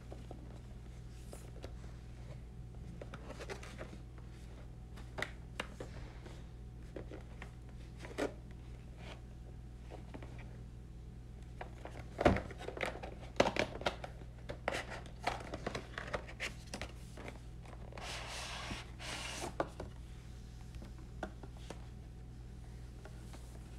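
A cardboard washi tape gift box being handled and opened on a wicker surface: scattered taps and knocks of cardboard, thickest and loudest about halfway through, then a brief rustling scrape near the end, over a steady low hum.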